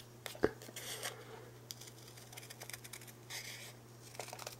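Scissors trimming the edge of a small black paper frame: a few soft snips and rustles, with a sharper click about half a second in.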